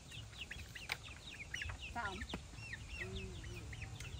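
Chickens: a steady stream of short, high peeps, with a longer falling call about two seconds in and a low cluck about three seconds in, over a steady low rumble.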